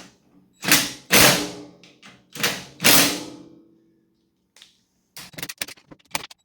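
Four heavy metal bangs on the tool box, each with a short ring, in the first three seconds. After a short pause comes a quick run of light clicks and rattles near the end.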